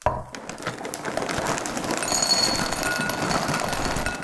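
Dry soy chunks poured from a crinkling plastic bag into a glass bowl: a dense, steady rattle of many small light pieces tumbling onto glass and against each other.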